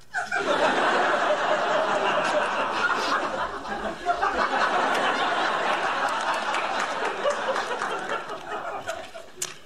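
Studio audience laughing, a steady crowd sound that dies down near the end.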